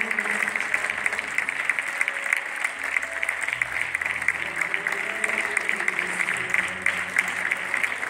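Theatre audience applauding: a steady, even patter of many hands clapping.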